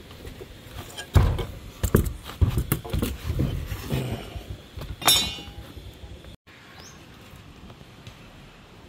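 A run of irregular hand-tool blows striking lumber, about a dozen in four seconds. The last blow carries a short metallic ring.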